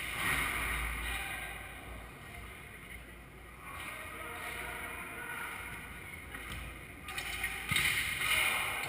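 Sand volleyball game in a large indoor hall: a steady background hum with faint voices of players, and a sharp hit of the ball near the end.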